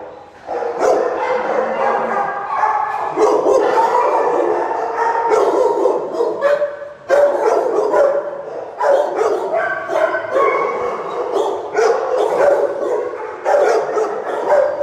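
Many shelter dogs barking and yipping at once in a tiled kennel, a dense, nonstop chorus of overlapping barks.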